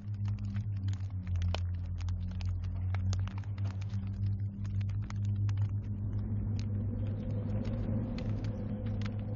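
Open fire crackling and snapping, with dense irregular pops over a deep, steady low rumble. A faint higher hum builds from about the middle on.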